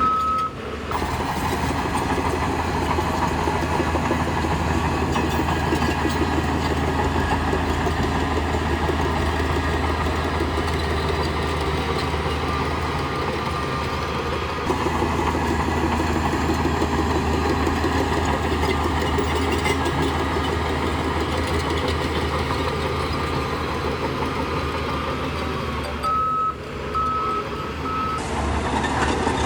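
Heavy diesel machinery running steadily, a bulldozer at work, with a reversing alarm beeping once at the start and three times near the end.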